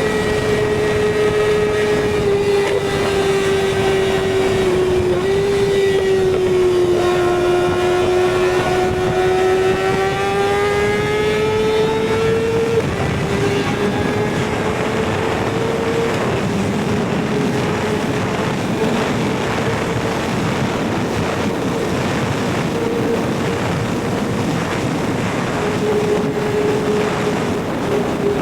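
Kawasaki ZX-6R inline-four engine running at high, steady revs under way, its pitch sagging a little and then climbing back in the first dozen seconds before holding fairly even, with a steady rush of wind noise underneath.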